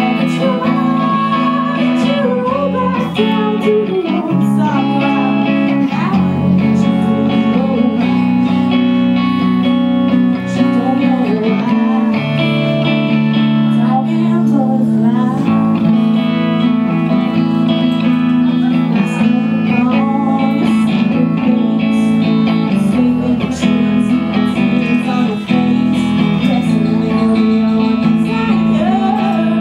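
Live band music: a female voice singing over two electric guitars played through amplifiers, the guitars holding sustained chords.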